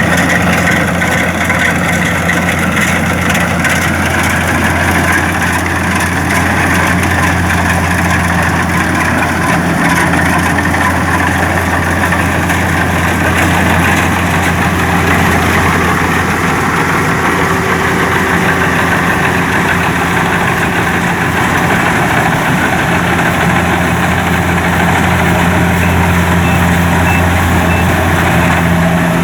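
Kubota DC-70 rice combine harvester running steadily, its diesel engine holding a constant low note under a broad mechanical rush.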